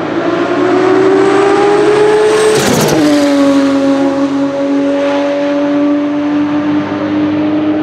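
Turbocharged Porsche Type 962/70 flat-six of a 1985 March 85G GTP race car driving on track. Its note climbs steadily as it accelerates, drops sharply about three seconds in, then holds a steady lower note.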